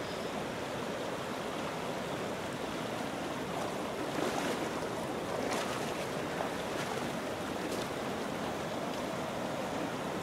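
Stream water rushing steadily over boulders and rock debris, a continuous splashing rush.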